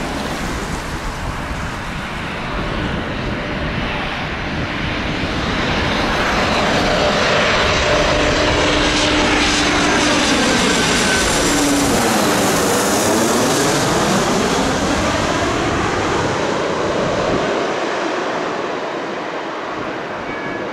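KLM Embraer E190 jet airliner on final approach passing low overhead with its twin turbofans at approach power. The engine noise swells to a peak about halfway through, its tone drops in pitch as the aircraft goes over, with a sweeping, phasing whoosh, then fades as it moves away toward the runway.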